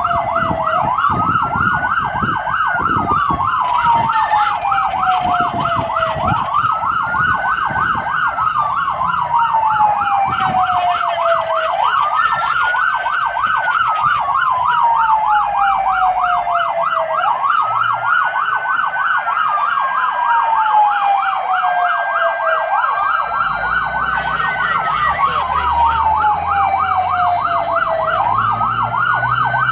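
Fire truck sirens heard from inside the cab while responding: a wail that climbs quickly and falls slowly, repeating about every five seconds, over a rapid warbling tone, with the truck's engine and road rumble underneath.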